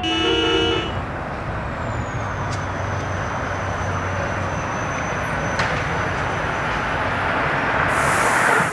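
City bus pulling in to a stop: a steady rush of road and tyre noise that slowly swells as it draws up, with a thin high whine, and a short hiss of air shortly before the end.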